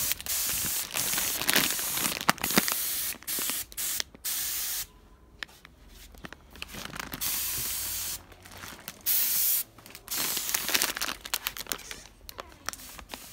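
Aerosol spray can hissing in repeated short bursts as engine parts are sprayed, with a pause of a couple of seconds about five seconds in.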